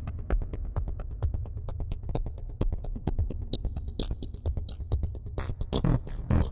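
Homemade modular synthesizer playing electronic music: a fast ticking percussive sequence over a steady low bass. A high tone comes in about halfway, and louder pitched notes enter near the end as the patch changes.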